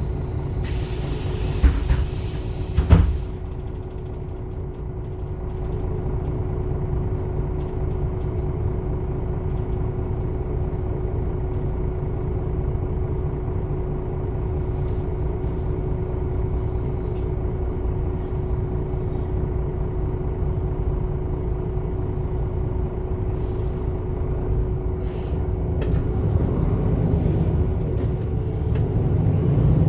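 MAN Lion's City A21 articulated bus with its 360 hp diesel and ZF EcoLife automatic: a hiss of compressed air with a couple of knocks for the first three seconds, then the engine running steadily with one steady hum, getting louder near the end as it pulls away.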